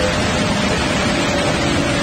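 Steady rushing of a large waterfall, water pouring over a broad ledge, with faint held tones underneath.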